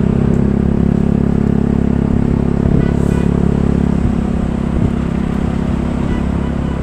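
Bus engine running steadily, its even hum easing a little about four seconds in.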